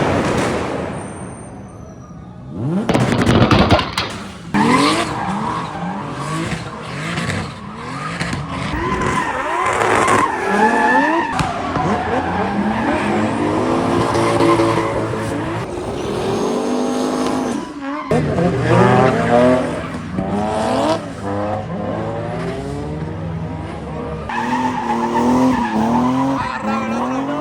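Drift cars driven hard: engines revving high, their pitch rising and falling again and again as the throttle is worked, with tyre squeal and skidding. The sound breaks off and restarts a couple of times, as separate passes.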